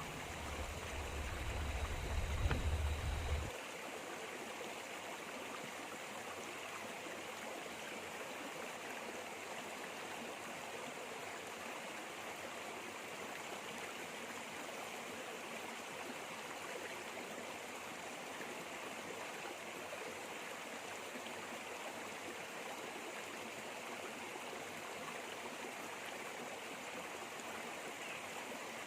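Steady rushing of a flowing river or stream. A low rumble sits under it for the first few seconds, then stops.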